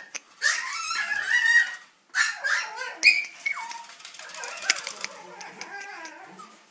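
Tiny dog giving high-pitched whimpers and yips in three short bouts, one ending in a falling whine, followed by fainter sound with a few light clicks.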